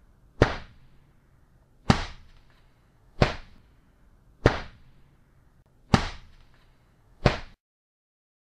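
Six heavy blows struck one after another, about one every second and a half, each landing sharply and fading fast: the sound of someone being beaten. A faint hushed background under them cuts off suddenly after the last blow.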